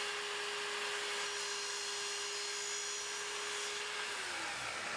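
Sliding miter saw running with a steady motor whine; about four seconds in its pitch dips slightly as the blade loads up in the wood.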